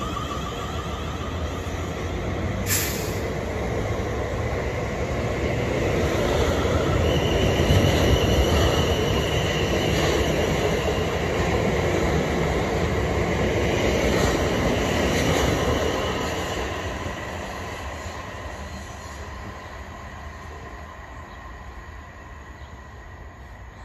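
Class 450 Desiro electric multiple unit pulling away and accelerating, its wheels and motors growing louder as the carriages run past, then fading steadily into the distance over the last several seconds. A single sharp click about three seconds in.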